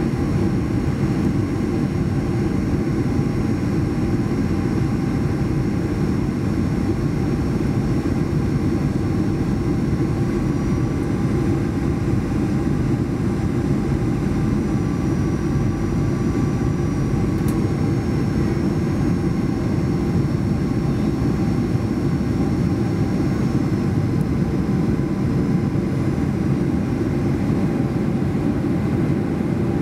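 Steady cabin noise inside a Boeing 737-800 with its CFM56 turbofan engines running: a constant low rumble of engine and airflow, with a faint high whine above it.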